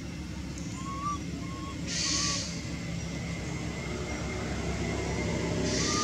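Outdoor ambience: a steady low rumble with a few short rising chirps, about four, and two brief high hissing bursts.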